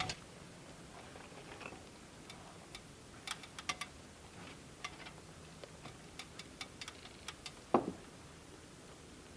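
Scattered faint clicks and taps at uneven intervals, with one louder, duller knock a little before the end.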